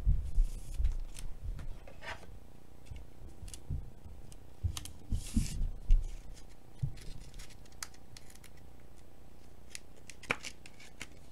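A trading card in a clear rigid plastic holder handled close to the microphone: scattered clicks, rubs and short scrapes of plastic against plastic and fingers, with a brief hissing scrape about five seconds in and a sharper click near the end.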